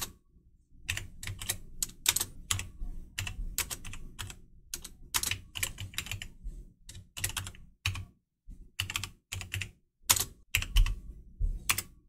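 Typing on a computer keyboard: irregular runs of key clicks with short pauses, the longest near the start.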